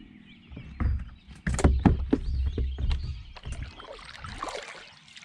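Paddle and gear knocking and thudding against a plastic sit-on-top fishing kayak hull in a run of irregular knocks, then a softer hiss near the end.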